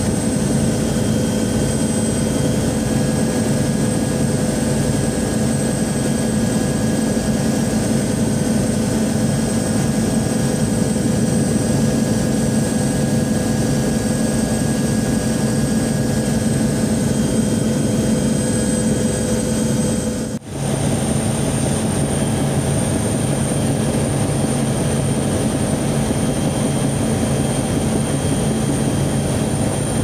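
Aircraft engine drone in flight: a loud, steady hum with a wash of rushing noise and several held tones. About twenty seconds in it briefly drops out and resumes with its tones slightly changed.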